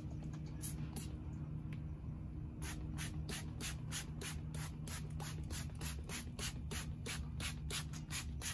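Spray bottle of engine degreaser squeezed over and over: short hissing squirts, a couple early on and then a steady run of about four a second from a few seconds in. A steady low hum runs underneath.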